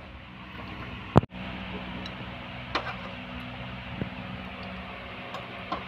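A steady low hum with a sharp click about a second in and a few fainter clicks later.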